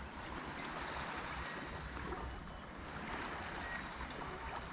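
Lake water lapping against a kayak, with wind noise on the microphone: a steady, fairly quiet wash.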